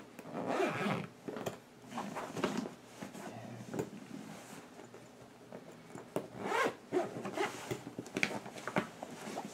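A thick, heavy zipper on a snake-style mermaid tail being pulled shut in several short pulls, with pauses and handling between them.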